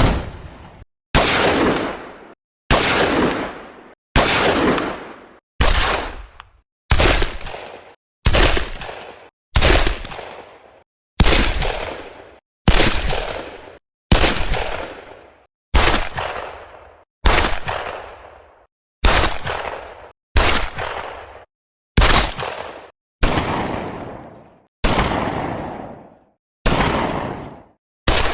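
Pistol gunshots fired one at a time, about twenty shots roughly a second and a half apart. Each is a sharp crack followed by a short echoing tail that dies away before the next.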